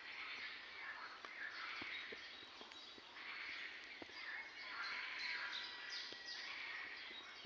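Spring woodland bird chorus: many small birds singing and chirping over one another.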